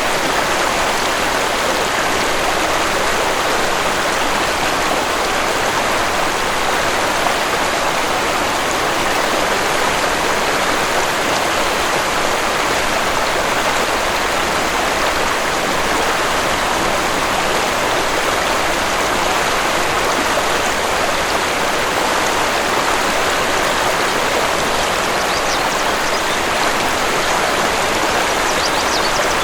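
Waterfall: a steady, unbroken rush of falling water, with a few faint bird chirps near the end.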